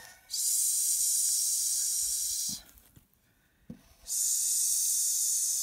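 A woman drawing out a long hissing "sss", the sound of the letter S, twice, each about two seconds.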